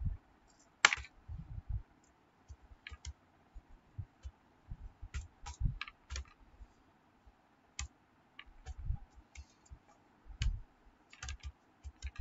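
Typing on a computer keyboard: irregular keystrokes, each a short click with a dull low thump, one sharper click about a second in.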